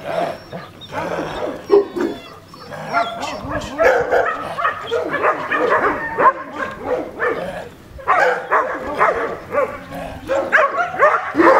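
A young shepherd dog vocalizing while it grips and tugs a bite pillow: many short pitched calls that rise and fall, coming in a near-continuous string.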